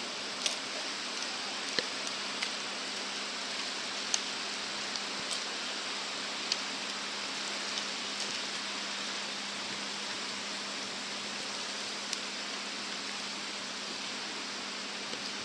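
Steady rush of the swollen Shimanto River in flood, with a few faint clicks scattered through it.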